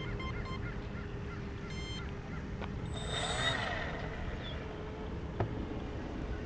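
Wind rumbling on the microphone under a faint steady hum, with scattered short bird calls and one louder call about three seconds in.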